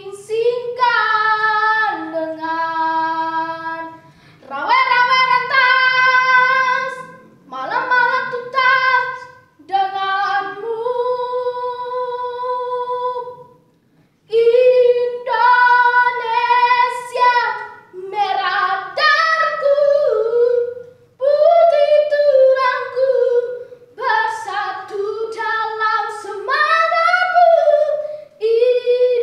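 A boy singing solo and unaccompanied, in phrases a few seconds long with short pauses for breath between them, holding one long note near the middle.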